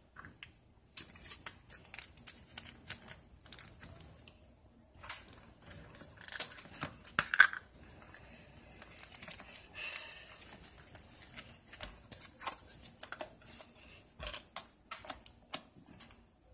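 Hands squishing and poking slime: a run of sticky clicks, crackles and small pops, loudest about seven seconds in.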